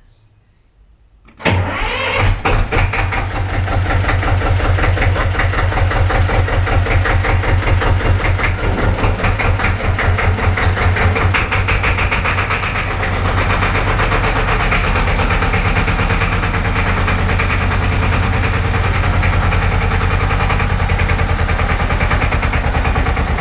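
Old Kramer tractor's diesel engine, preheated with its glow plugs, cranking and catching about a second and a half in, then running steadily with an even beat.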